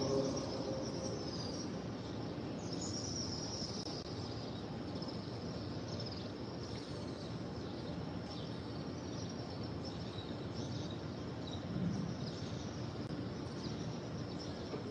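Steady open-air background noise with small birds chirping faintly and repeatedly, high-pitched, in the silent pause of a congregational prayer.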